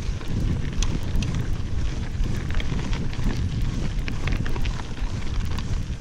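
Mountain bike rolling along a dirt and gravel road, with wind rushing over the microphone as a steady low rumble and scattered sharp clicks and rattles from the tyres and bike.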